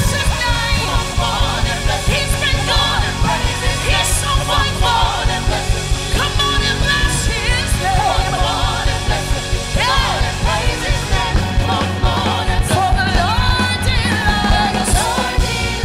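Upbeat gospel worship song: voices singing 'c'mon, c'mon and bless him, c'mon and praise his name' over a full band with a steady driving beat.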